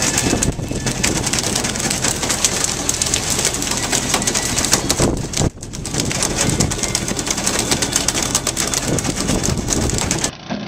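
Sea water rushing and splashing along a fishing boat's hull and stern, a dense, crackling noise with a low hum beneath.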